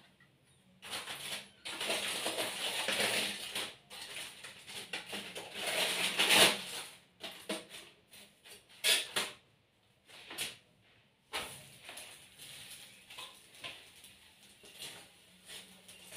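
Intermittent rustling and light clatter of hands at work over a stove: a chapati being laid on a dry flat pan and foil crinkling in a bowl of cooked chapatis, with a few sharp knocks.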